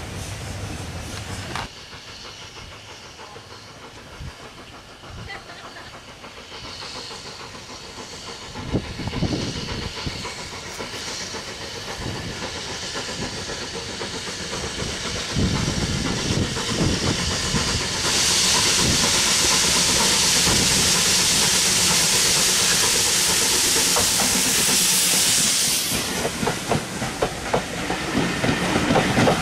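Steam locomotive working a passenger train past. A loud, steady hiss of steam lasts several seconds about midway. Near the end the coaches rumble by, with clicks from the wheels on the rail joints.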